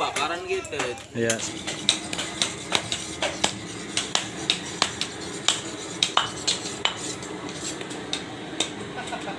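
Several cleavers chopping goat meat and bone on wooden cutting boards: sharp, irregular chops, two or three a second, over a background of voices.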